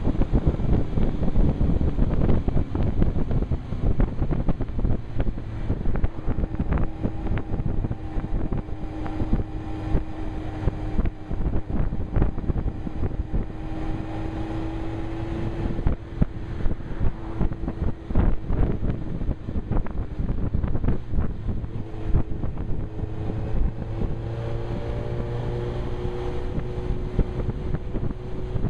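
Wind buffeting a helmet-mounted microphone over the note of a Suzuki GSX-R 1000's inline-four engine at a moderate, steady road speed. The engine tone fades about halfway through and comes back after a few seconds.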